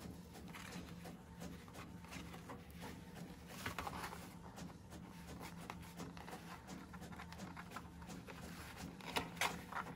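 Patterned cardstock rustling and crinkling with small clicks as a small metal fastener is worked through a punched hole in a folded paper flap, with louder crinkles about four seconds in and again near the end.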